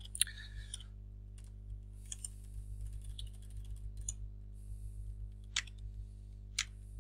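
Computer keyboard being typed on in short irregular runs of key taps, with a few sharper clicks, over a steady low hum.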